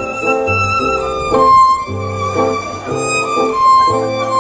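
Acoustic string band playing an instrumental break: a fiddle carries a held melody with vibrato over rhythmic guitar chords and upright bass notes.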